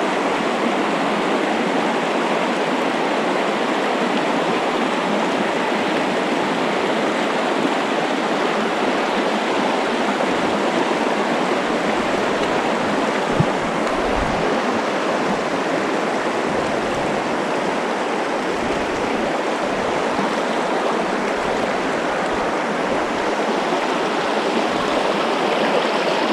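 Steady, even rushing of a trout stream's flowing water, unbroken throughout.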